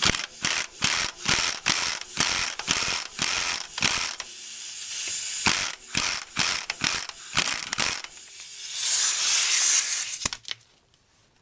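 Pneumatic impact wrench hammering in short bursts on the nut of a ball-joint press, pulling a stuck ball joint out of an ATV's front knuckle. Near the end comes a burst of compressed-air hiss that cuts off with a click about ten seconds in.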